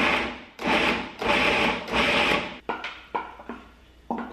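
Food processor pulsing a bowl packed with raw cauliflower florets into rice-sized bits: four short bursts of the motor and blade chopping, each about half a second, followed by a few lighter clicks.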